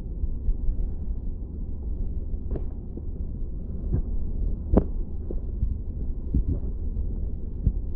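Underwater sound of a small creek picked up by a submerged camera: a steady low rumble of moving water, with a handful of sharp clicks and ticks, the loudest about halfway through.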